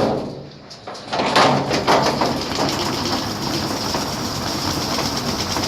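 Electrolux top-loading washing machine starting a spin ramp with an unbalanced load of towels: after a short lull the motor comes on about a second in, with a few knocks, then the drum spins with a steady hum.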